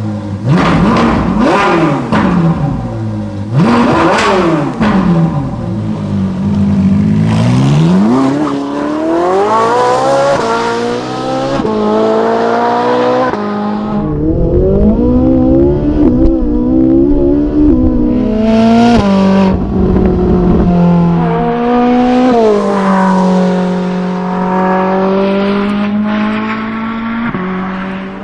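Ferrari 458 Italia's naturally aspirated 4.5-litre V8 revving sharply twice, then accelerating hard through several upshifts. Near the end it settles to steady revs.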